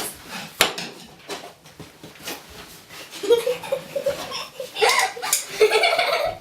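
A few sharp clicks and knocks, then a young child's high voice from about three seconds in, without clear words.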